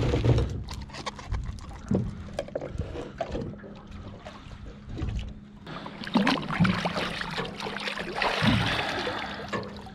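Handling noises on a small aluminium fishing boat as a freshly caught snapper is dealt with: scattered knocks against the hull, then a longer stretch of rough splashing water noise from about six seconds in, over a faint steady hum.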